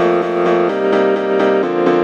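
Background music: a keyboard instrumental of repeated notes over chords that change about every second, with a steady beat.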